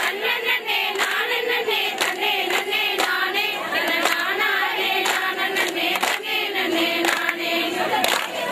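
A group of women singing a folk song in unison while clapping their hands in a steady rhythm, as in a Tamil kummi circle dance.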